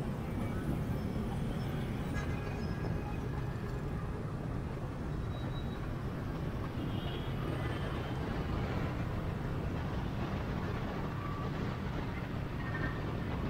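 Steady low rumble of riding a motorbike through city traffic: engine and road noise that holds the same level throughout.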